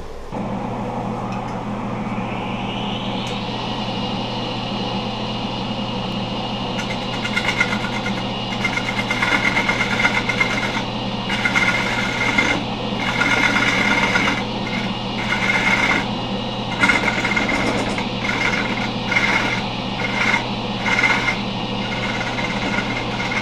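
Laguna midi-lathe motor coming up to speed with a rising whine over the first few seconds, then running steadily with a heavy black walnut bowl on the spindle. From about seven seconds in, a half-inch scraper cuts into the hard, dry 28-year-old walnut of the center post in repeated scraping strokes, slow going.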